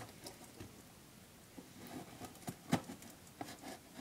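Small knife cutting into a white Priority Mail shipping box: faint, scattered scratches and clicks of the blade on the package, the sharpest about two and three-quarter seconds in.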